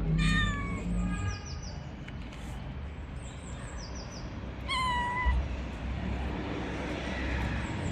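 A street cat meowing three times: a short meow at the start, a fainter one about a second in, and a louder, drawn-out meow about five seconds in. Birds chirp faintly in short high bursts in the background.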